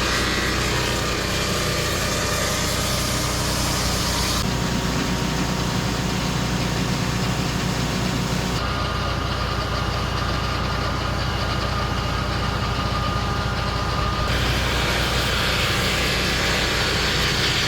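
Sawmill engine running steadily, its tone changing abruptly three times.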